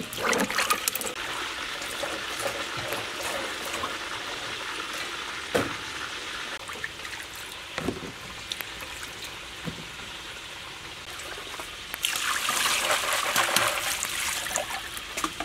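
Water splashing and trickling as green tamarind pods are washed by hand in a bowl, with a few knocks. About twelve seconds in, it gets louder as tap water pours onto them in a plastic basket.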